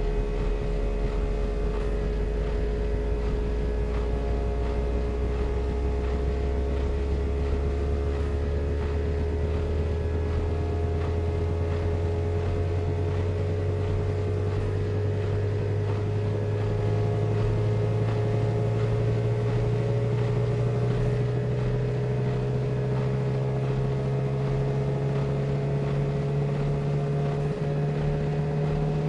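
Kenmore washing machine running, its steady motor hum joined by a lower tone that rises slowly and evenly in pitch as the drum gradually speeds up.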